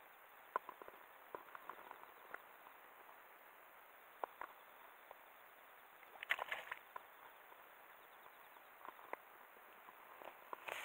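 Quiet outdoor ambience: a steady faint hiss with scattered small ticks and clicks, and a short cluster of clicks and rustling a little past halfway.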